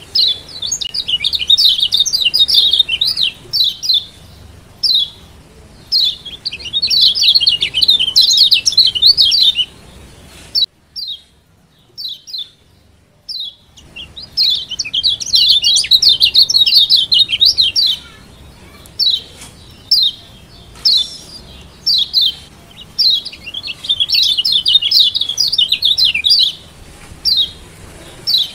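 Kecial kuning (Lombok yellow white-eye) calling in the 'ciak joss' style. Sharp single high chips alternate with fast twittering runs, with a pause of about three seconds near the middle.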